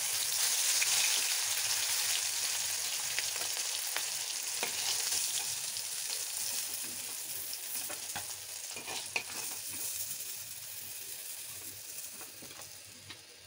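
Catla fish pieces sizzling in hot oil in an iron karahi, with scrapes and taps of a metal spatula and knife as the pieces are turned and lifted out. The sizzling gradually dies down as the fish comes out of the pan.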